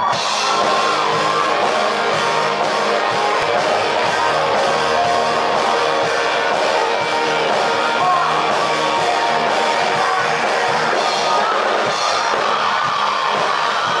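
Live rock band playing: drum kit, bass and electric guitar, with a male singer's vocal over them.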